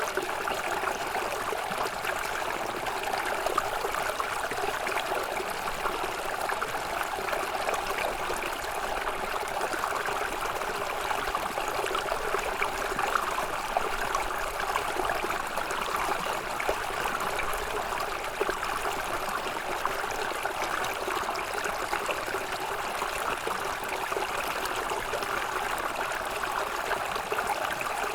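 Small snowmelt stream running and trickling over stones: a steady babble of flowing water with fine splashes and gurgles, at an even level throughout.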